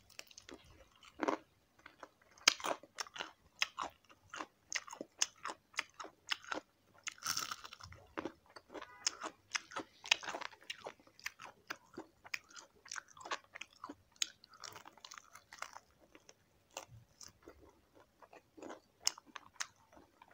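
Crunchy chewing of crispy deep-fried chicken feet: a bite into the battered skin, then many sharp crunches in an uneven run as she chews.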